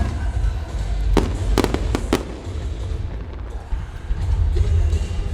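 Fireworks shells bursting: a quick run of about five sharp bangs between about one and two seconds in, over a steady deep rumble.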